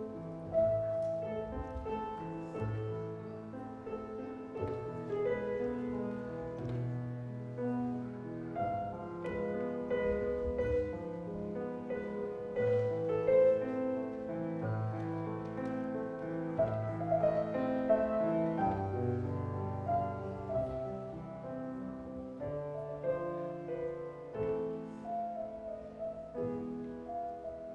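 Grand piano playing a classical-style piece, a melody over sustained chords.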